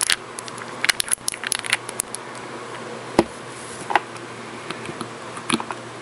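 Light clicks and taps from long fingernails handling a plastic swatch stick and a nail polish bottle, a quick cluster near the start and one sharper knock about three seconds in.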